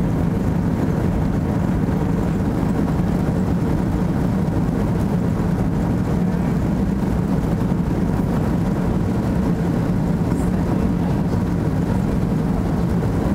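Steady cabin noise inside an Airbus A330 climbing just after takeoff: a constant low rumble of the jet engines and rushing air, with a faint steady hum.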